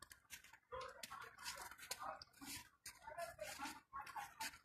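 Footsteps crunching in fresh snow at a walking pace, about two steps a second, with faint short animal calls over them.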